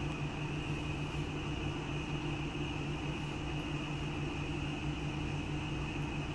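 Steady machine hum with a constant high whine, unchanging throughout.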